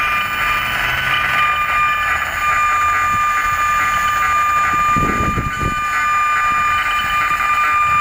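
Handheld RF electrosmog meter (50 MHz–3.5 GHz) in audible mode, giving a steady buzzing hiss with high whining tones: pulsed microwave signals from nearby cell-tower antennas made audible. A short low rumble comes about five seconds in.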